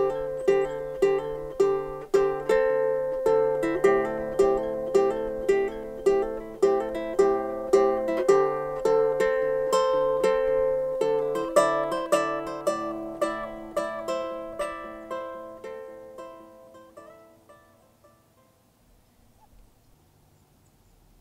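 Background music of plucked strings playing evenly paced notes, fading out near the end.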